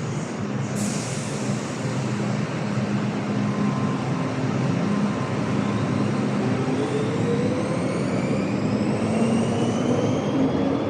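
MTR M-train running on the Tsuen Wan Line, with steady rolling noise from the wheels and track. From about six seconds in, the traction motors give a whine that rises in pitch as the train picks up speed.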